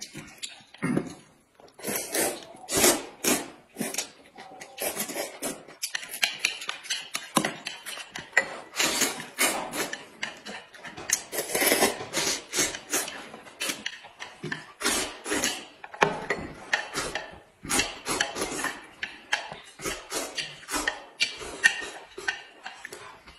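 Two people eating noodles noisily: loud slurps and chewing in quick, irregular bursts, one after another with no pause.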